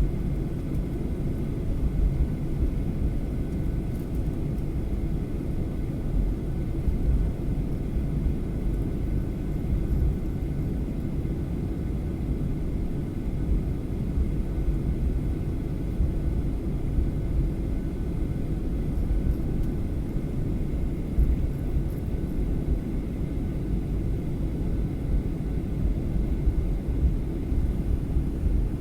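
Steady low rumble inside an airliner cabin, the jet engines and air systems running evenly, with faint steady whining tones over it.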